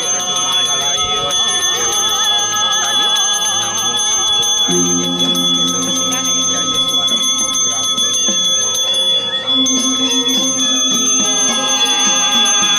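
A Balinese priest's brass hand bell (genta) ringing steadily and without pause, with singing and ceremonial music behind it.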